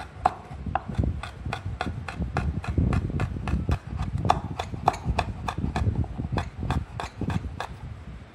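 Kitchen knife chopping green chillies on a wooden cutting board: steady knocks of the blade on the wood, about four a second.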